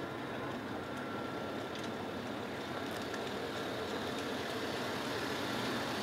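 A small car driving slowly toward and past: its engine and tyres make a steady hum that grows slightly louder as it comes close.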